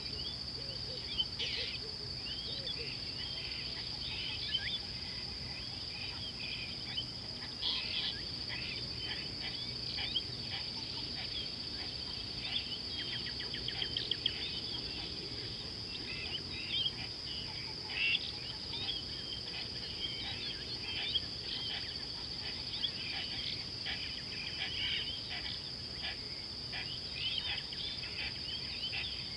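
A steady high insect trill with many birds chirping and calling over it, short calls coming and going throughout.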